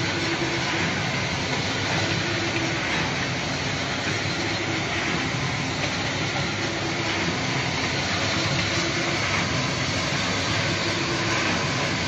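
DSS-300 dried chili stem cutting machine running steadily, a dense, even mechanical din with a faint constant hum underneath as chilies pass through its stem drum.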